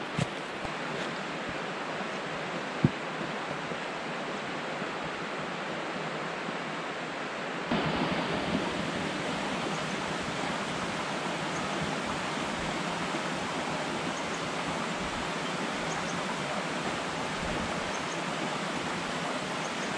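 Steady rush of a mountain stream running over rocks, getting louder about eight seconds in. Two brief knocks come in the first few seconds.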